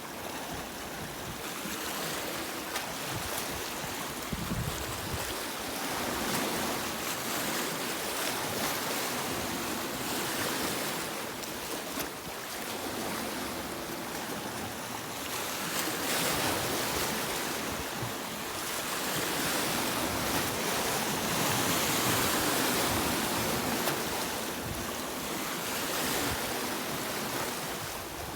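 Sea waves breaking and washing on a beach, a continuous surf noise that swells and fades every few seconds, with a bigger surge in the last third.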